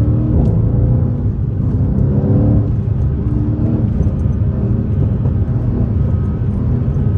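Mercedes-AMG C63 S coupe's twin-turbo V8 heard from inside the cabin while driving: a steady low engine and road rumble, with the engine note rising and falling a few times.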